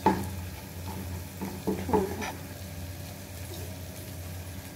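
A slotted plastic spatula stirring and scraping a thick chickpea and chicken masala in a non-stick wok, knocking against the pan once at the start and a few times about two seconds in, over a low sizzle from the pan.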